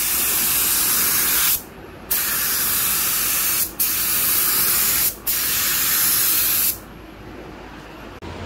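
Gravity-feed paint spray gun spraying clear coat: four hissing bursts of air and atomised paint, each about one and a half seconds long, broken by brief gaps as the trigger is let off between passes.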